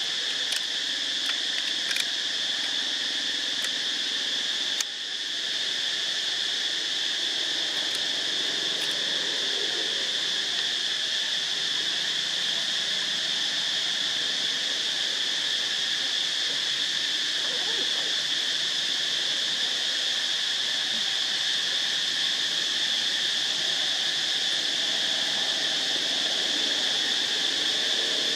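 Steady, high-pitched insect chorus that drones without a break, with a few faint clicks in the first five seconds.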